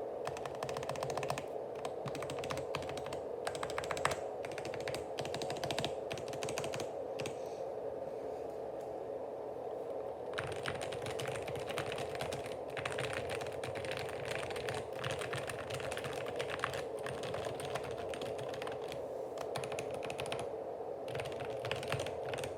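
Fast typing on a GK61 mechanical keyboard with olive-oil-lubed Gateron optical yellow linear switches and stock stabilizers: a dense run of key clacks that thins out for a couple of seconds around the middle, over a steady hum.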